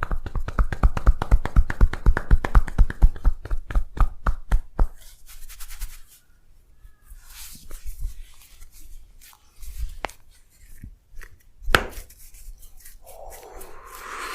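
Massage percussion: hands striking the body in quick succession, several strikes a second for about five seconds. The strikes then slow to scattered slaps and taps, with one louder slap near the end.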